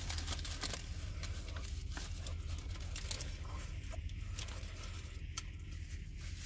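A person chewing a mouthful of fried chicken sandwich, with small clicks and crinkles from its paper wrapper, mostly in the first second or so. A steady low hum runs underneath inside the car.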